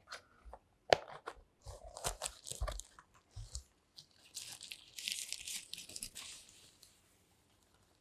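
Handling noises: a string of sharp clicks and knocks, then about two seconds of crinkling rustle, as packaging around a mechanical keyboard is handled and unwrapped.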